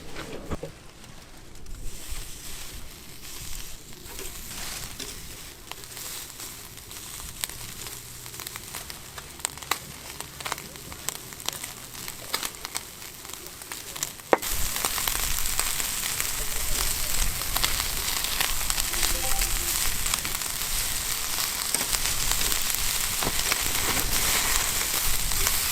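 Food frying in a hot pan: light, sparse crackling at first, then a sudden jump about halfway in to a loud, steady sizzle.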